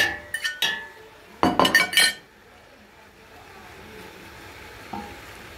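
Metal fork clinking and scraping against a ceramic plate as shredded chicken is knocked off it into a steel pot: a run of sharp clinks, with a louder cluster of several about a second and a half in, then only a faint hiss.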